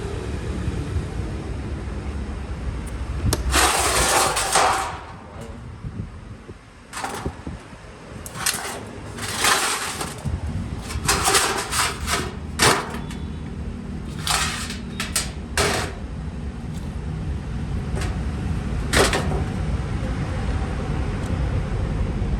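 Repeated short bursts of hissing air, each under about a second, some in quick succession, over a steady low rumble.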